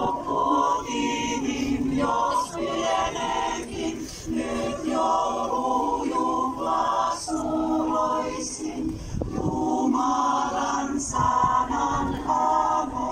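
Choir singing in sung phrases with short breaks between them.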